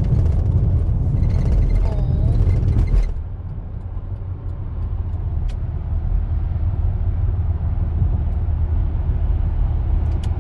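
A steady low rumble with a rushing hiss over it. The hiss is louder until about three seconds in, then drops away, while the rumble carries on.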